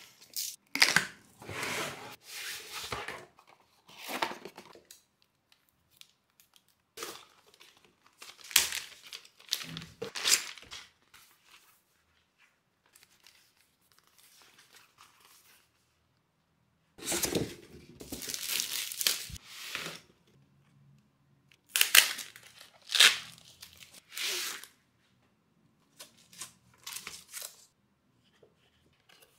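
Cardboard packaging being opened and handled by hand: tape on the box being cut, then cardboard and paper rustling, tearing and crinkling in separate bursts of a second or few each. Near the middle there is a long quiet stretch.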